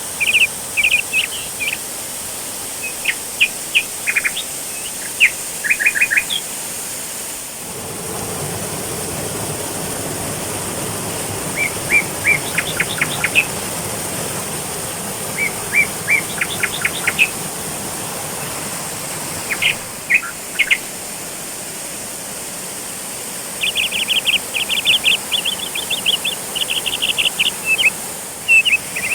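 Small birds calling in quick runs of short, high chirps, in several bouts with a long run near the end, over the steady rush of a waterfall. The water sound grows fuller about a quarter of the way in.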